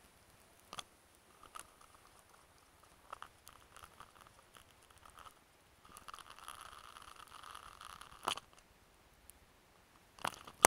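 Faint rustling and scattered soft taps and clicks: handling noise of a camera carried at a run. A louder rustle builds about six seconds in, and a sharper knock comes near the end.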